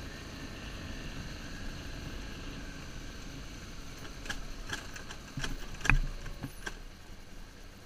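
Motorcycle engine running steadily on a rough dirt track, with a low hum and wind noise. From about four seconds in come several sharp knocks and rattles as the bike jolts over bumps, the loudest about six seconds in.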